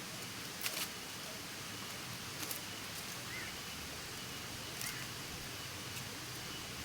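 Outdoor bird-trapping ambience: a steady hiss with a few brief rustles or crackles, and two faint short bird chirps in the second half.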